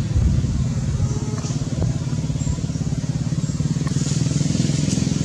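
An engine running steadily with a low, evenly pulsing drone.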